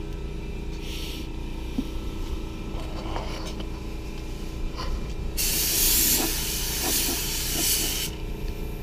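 Compressed-air paint spray gun spraying clear coat onto a truck's door panel: a steady hiss of about three seconds in the second half, after a brief puff near the start.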